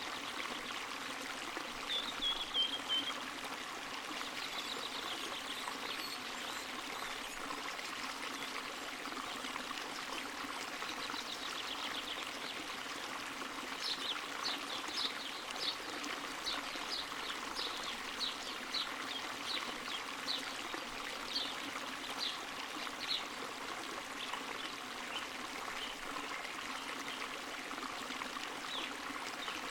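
Water from a spring running and trickling steadily. A short falling call sounds about two seconds in, and a run of short high chirps, about two a second, comes through the middle.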